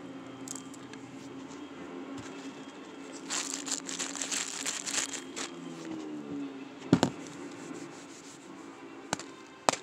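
A fidget toy in a crinkly plastic wrapper rubbed and squeezed by hand for about two seconds. Then two sharp knocks a little after the middle, and a third, louder one near the end.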